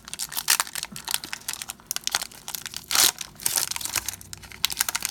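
Trading-card pack wrapper crinkling and tearing as a pack is opened, in quick irregular crackles with a louder burst about three seconds in.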